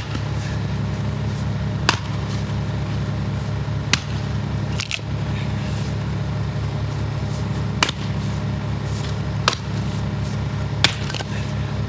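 Axe strikes splitting firewood rounds: sharp single cracks about every one to two seconds, seven in all, over a steady low engine-like hum.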